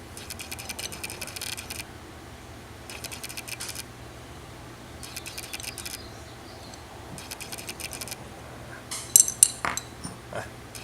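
Small steel parts of a knurling tool clinking and clattering, with a few sharp, loud metal clinks about nine seconds in as a part is fumbled and dropped. Before that, an even high-pitched buzzing comes and goes in bursts about a second long, four times.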